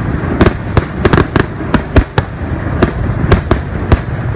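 Aerial fireworks bursting: a rapid, irregular run of sharp bangs and cracks, several a second, over a continuous low rumble of booms and echoes.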